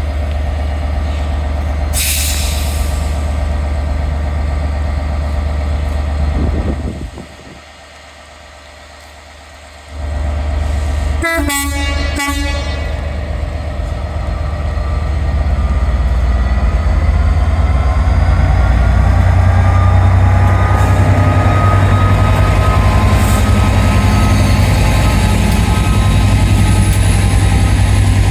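Diesel train at a station, its engine running steadily, sounding a short two-note horn about eleven seconds in. Its engine note then rises and grows louder as it works harder.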